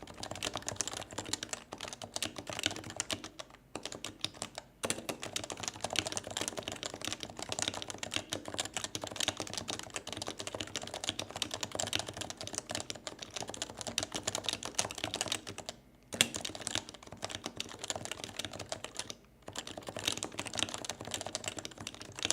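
Fast, continuous typing on a Leopold FC660C keyboard with 45 g Topre electro-capacitive rubber-dome switches: a dense run of soft keystrokes, broken by a few short pauses.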